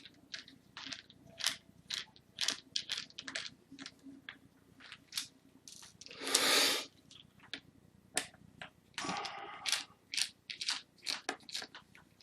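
Small screws being backed out of a laptop's display panel with a small screwdriver: a run of light, irregular clicks and ticks from the tool and the screws. A louder scrape or rustle comes about six and a half seconds in, and a rougher stretch follows a few seconds later.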